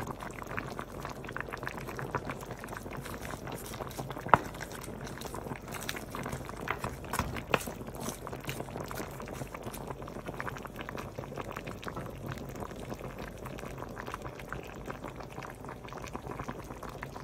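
Pot of chicken pochero stew simmering, bubbling steadily with a dense crackle of small pops. Two sharp clicks stand out, about four seconds in and again about three seconds later.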